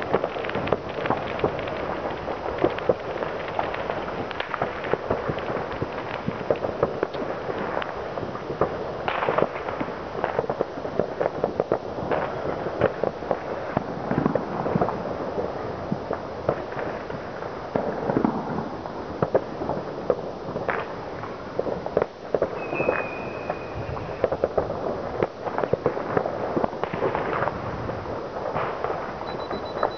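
Many fireworks and firecrackers going off at once across a town, a continuous crackle of pops and bangs with no pause. A brief whistle cuts through about two-thirds of the way in.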